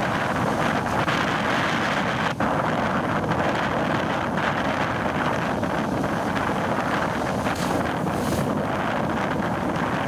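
Ocean waves breaking and whitewater rushing close by, with wind buffeting the microphone: a steady rush of noise.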